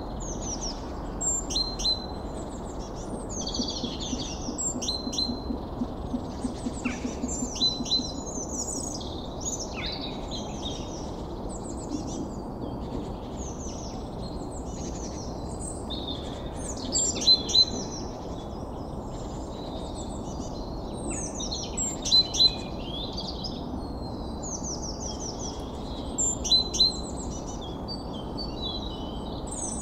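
Many small birds chirping and twittering at once: short, rapid, high calls overlapping throughout, with a few louder chirps standing out now and then, over a steady low background noise.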